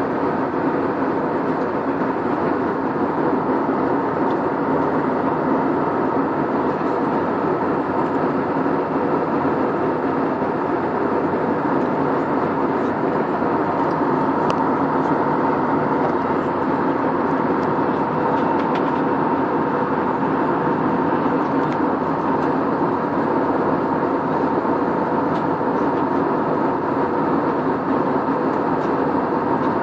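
Steady airliner cabin noise in flight: the drone of the engines and rushing air, with a faint steady whine running through it.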